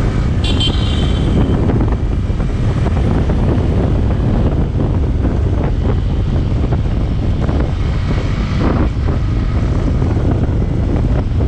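Yamaha R15 V3's 155 cc single-cylinder engine running while riding, heavily mixed with wind buffeting the microphone. A brief high-pitched sound comes about half a second in.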